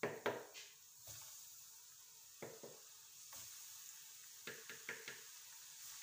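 Hot oil in a frying pan sizzling around battered potato strips as they are dropped in to deep-fry, with scattered sharp crackles and pops.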